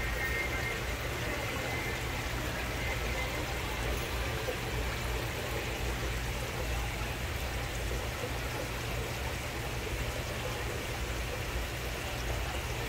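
Steady low hum with a faint trickle of running water: aquarium pumps and filters running.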